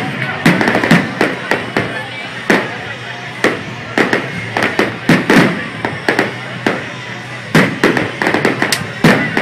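Fireworks going off in a rapid, irregular string of sharp bangs, about two or three a second, with crackling between them.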